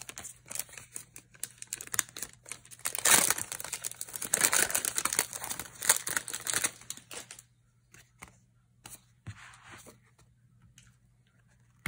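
Clear plastic packaging crinkling and rustling as it is handled, in dense crackly bursts for about seven seconds, then quiet with a few faint small clicks.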